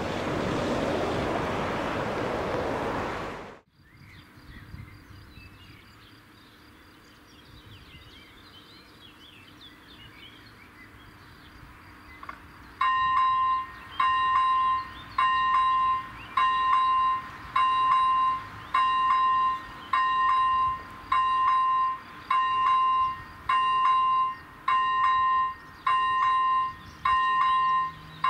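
A steady rushing noise that cuts off abruptly after about three and a half seconds, then faint birdsong. About 13 seconds in, a level crossing's electronic warning bell starts: a ringing tone repeated roughly once a second, signalling that a train is approaching.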